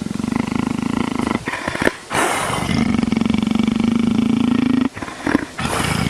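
Lion purring: a steady, pulsing low rumble, broken twice by a short pause with a noisy breath, about a second and a half in and again near five seconds.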